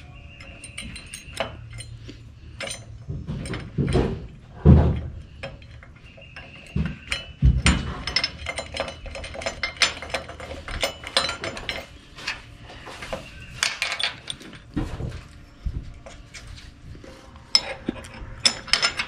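Metal bolts, nuts and mounting brackets clinking and knocking together as they are handled and fitted onto a boat trailer frame. There are a couple of heavier knocks about four to five seconds in.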